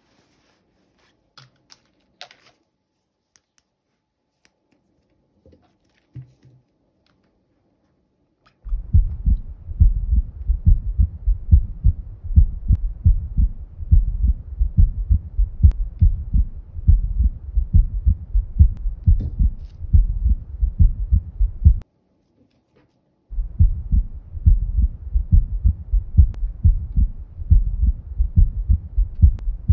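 Rapid, loud, low heartbeat-like pulsing that starts about nine seconds in, stops briefly after about twenty-two seconds and then resumes. Before it, only a few faint light clicks.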